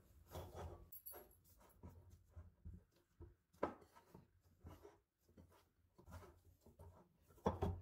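Hands kneading a stiff flour dough in a glass bowl: faint, irregular squishing and rubbing strokes, with two louder knocks, one about three and a half seconds in and one near the end.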